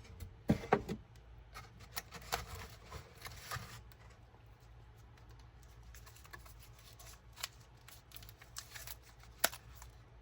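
A paper-wrapped firecracker pack being handled and turned over: light paper rustling and small clicks, busiest in the first few seconds, with one sharp click near the end.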